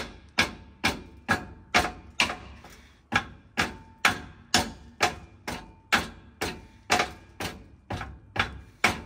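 A hammer striking metal in steady blows, about two a second, each blow with a short metallic ring. The blows stop near the end.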